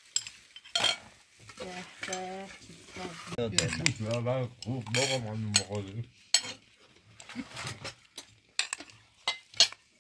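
Metal serving spoons scraping and clinking against china plates and a steel pot as rice, cutlets and fried potatoes are dished up, in scattered sharp clinks. A person's voice is heard in the middle.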